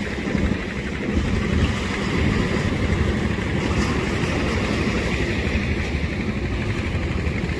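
A small engine running steadily, with the wash of surf behind it.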